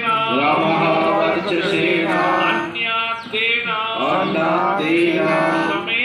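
Male voices chanting a Hindu mantra in a sung, melodic line, phrase after phrase.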